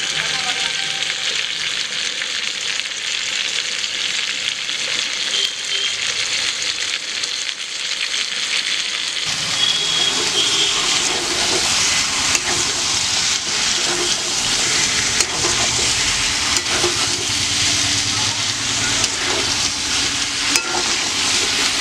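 Chicken and potato curry sizzling in oil in a metal kadai while a metal spatula stirs it. About nine seconds in the sizzling gets louder, with frequent small scrapes and clicks of the spatula against the pan.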